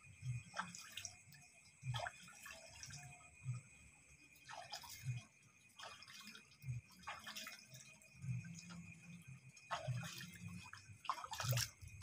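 Water splashing and dripping in short, irregular bursts as fish are washed and cleaned by hand.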